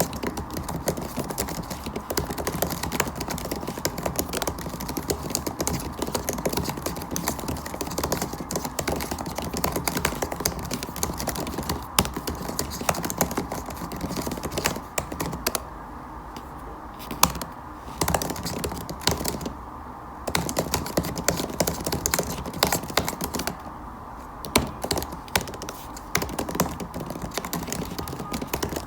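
Fast, continuous typing on a MacBook Air laptop keyboard, its keys clicking rapidly, with a few short pauses past the middle.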